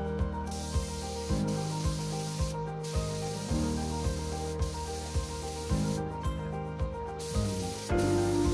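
Spray gun hissing in stretches as a worker sprays finish onto a carved hardwood door, breaking off briefly twice, over background music with a steady beat.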